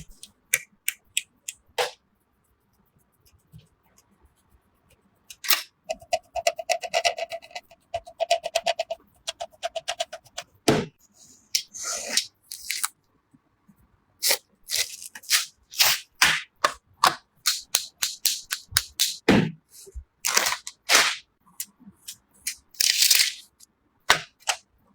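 Sharp clicks, snaps and knocks of computer parts being handled and fitted together, in irregular bunches with short pauses. A buzzing whir runs between about six and ten seconds in.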